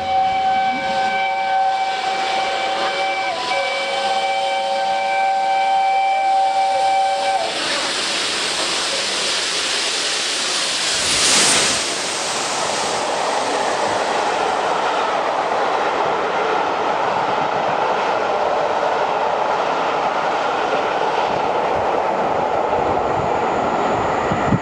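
A steam locomotive sounds one long, steady whistle of several notes at once for about seven seconds as it approaches at speed. The express then rushes through the station, loudest about eleven seconds in, followed by the steady rushing of its coaches passing.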